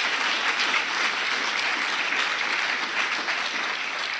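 Audience applauding, starting to die away near the end.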